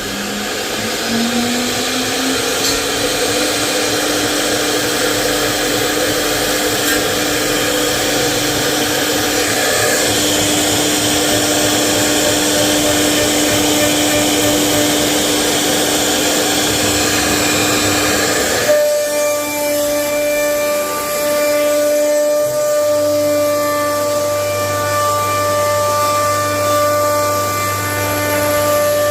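CNC router spindle cutting wood: a loud rushing noise with a steady whine that rises in pitch over the first few seconds and then holds. About two-thirds of the way through, the cutting noise stops suddenly and a steady whine with a low hum remains.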